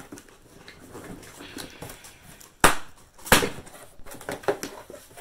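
A cardboard shipping box being handled and opened by hand: scattered rustling and small clicks, with two sharp, loud snaps or knocks about two and a half and three seconds in.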